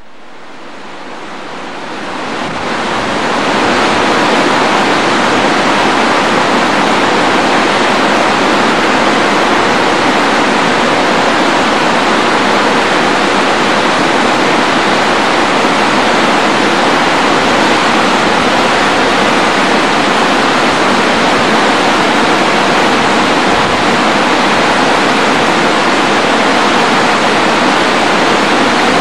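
Rushing water of a mountain torrent: a steady, loud rush of white water that swells up over the first few seconds and then holds even.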